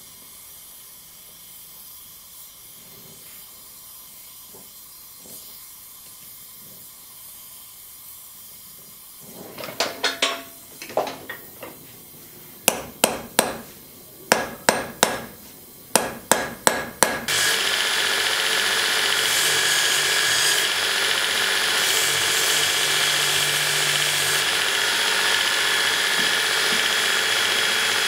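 Faint steady hiss of an oxy-acetylene torch flame, then hammer blows on a glowing rivet laid on a steel anvil, sharp ringing strikes coming at about two a second. From about seventeen seconds in a belt grinder runs steadily with a whine as metal is ground against the belt.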